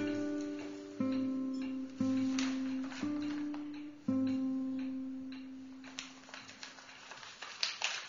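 Slow background music of single plucked guitar notes, a new note about once a second, each left to ring and fade.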